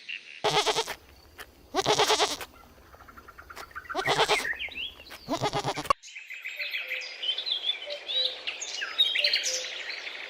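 A goat bleating four times, each call loud and wavering, then birds chirping and twittering in quick high notes.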